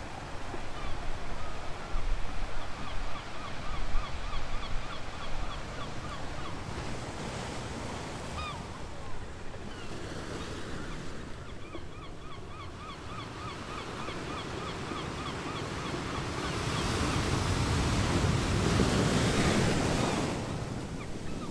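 Ocean surf washing steadily, with one wave swelling louder in the last few seconds and falling away. Birds call over it in quick runs of short chirps.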